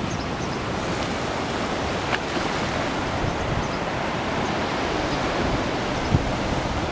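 Ocean surf washing onto a beach: a steady rushing of waves, with some wind buffeting the microphone.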